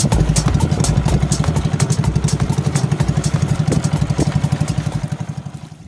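Small outrigger boat's engine running with a fast, even chugging, dying away near the end as the boat slows.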